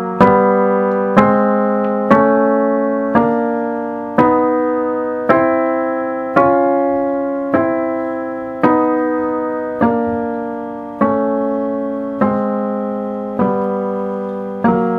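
Acoustic piano sounding a series of thirds, one after another about once a second, each struck sharply and left to ring and fade. This is the aural check of a freshly tuned equal temperament: the thirds should beat in an even progression as they go up.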